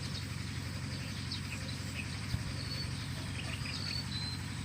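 Outdoor ambience: scattered short bird chirps and whistles over a steady low rumble.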